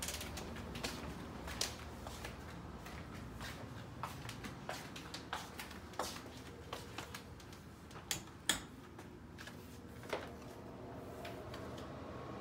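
Footsteps and small knocks on a hardwood floor, irregular clicks about one to two a second, with one sharper knock a little past two-thirds of the way through, over a low steady room hum.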